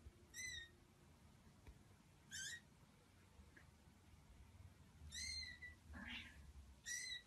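A young kitten mewing faintly: about five short, high-pitched mews, spaced one to two seconds apart.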